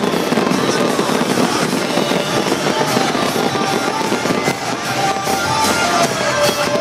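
Fireworks crackling and popping in quick succession over loud music.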